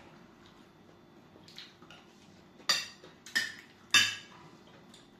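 Three sharp clinks of tableware, a little over half a second apart about halfway through, each ringing briefly.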